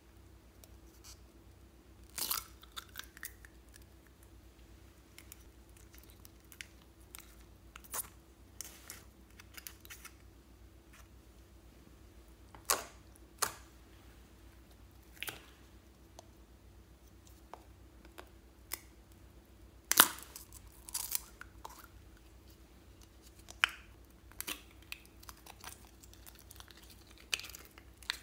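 Scattered plastic clicks, crackles and slime squishes as small bunny-shaped plastic slime containers are handled, squeezed and opened, the sharpest snap about two-thirds of the way through. A faint steady hum runs underneath.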